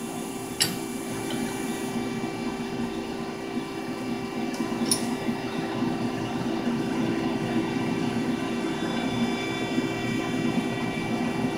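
Hydraulic ironworker's pump motor running at idle, a steady hum, with a couple of light metal clicks as the punch tooling is handled.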